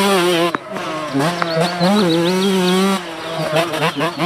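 Motocross dirt bike engine revving, a buzzing note whose pitch rises and falls as the throttle works, dropping briefly about half a second in and again at about three seconds.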